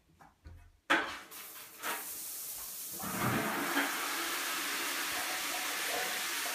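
A shower being turned on: a sharp knock about a second in, then the shower spray hissing, growing fuller for a couple of seconds and then running steadily into a bucket on the shower floor. This is the cold water that runs while the shower warms up to temperature.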